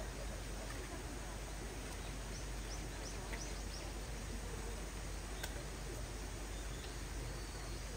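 Steady outdoor background noise with a quick run of about six short, high chirps from a small bird two and a half to three seconds in, and a single sharp click a couple of seconds later.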